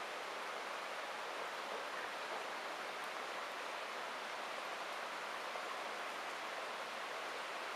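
Heavy rain falling steadily on asphalt and grass: an even, unbroken hiss with no let-up.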